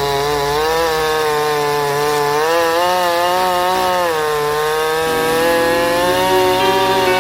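Two-stroke chainsaw running at high revs, its pitch wavering up and down as it cuts into the wood of the log.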